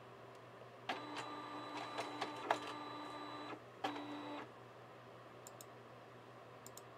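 Epson DS-510 sheet-fed document scanner pulling a trading card through its feeder: a steady motor whir with a few clicks starts about a second in and lasts about two and a half seconds, then stops briefly and whirs again for about half a second as the card is ejected.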